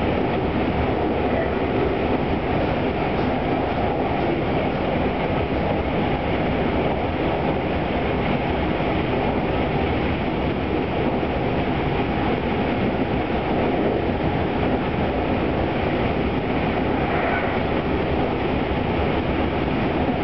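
Running noise of a Tobu 200 series limited express electric train moving at speed, heard from the vestibule of a motor car: a steady rumble of wheels on the rails.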